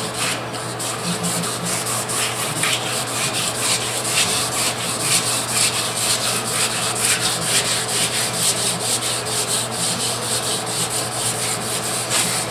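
Hand wet-sanding with a sanding block and wet sandpaper on a truck door's fresh enamel paint, in quick back-and-forth strokes, several a second. This is color sanding: cutting down orange peel in the paint.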